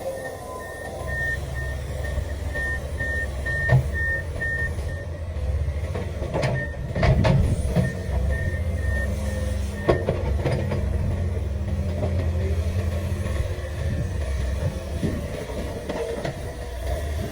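Komatsu PC500LC excavator's diesel engine running steadily under load, with a rapid high beep of its travel alarm for the first ten seconds or so. Metal clanks from the tracks or bucket come a few times: near 4 seconds, around 7 seconds and at about 10 seconds.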